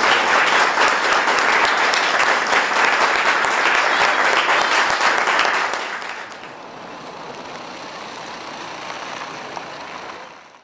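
Audience applauding with dense, continuous clapping, which drops to a much softer level about six seconds in and cuts off near the end.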